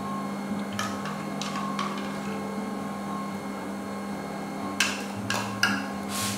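Philips automatic noodle maker running steadily, its mixing paddle stirring flour into dough as water is added through the lid. A few short sharp clicks and knocks come about a second in and again near the end.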